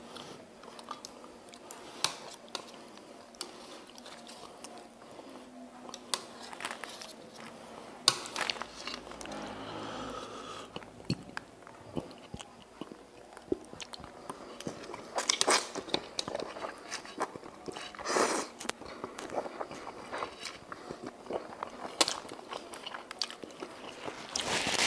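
Close-miked eating of chicken noodles (mie ayam): chewing mouthfuls, with sharp clicks of metal chopsticks against a metal tray and a few louder short bursts of mouth noise.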